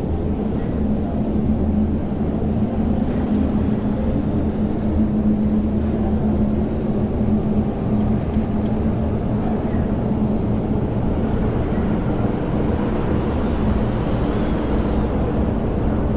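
MTR Kwun Tong Line electric train pulling out of an underground station, heard through glass platform screen doors. It makes a steady low rumble, and a faint whine rises in pitch as it picks up speed.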